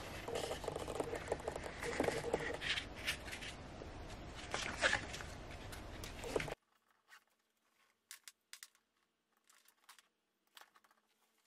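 Paper booklet handled close up, its pages rustling and crackling as it is opened. About six and a half seconds in the sound cuts off suddenly to near silence, broken by a few faint clicks.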